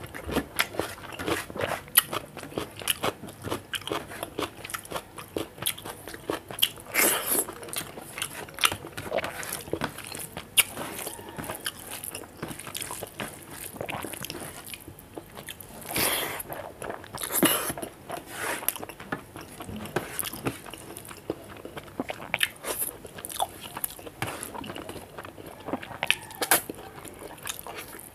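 A person chewing and crunching close to the microphone, eating rice with dal and fish curry by hand and biting into raw cucumber: a dense run of small wet clicks, with a few louder crunchy bursts about a quarter of the way in and just past the middle.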